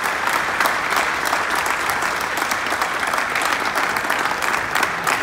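Audience applauding: dense, even clapping from a large crowd.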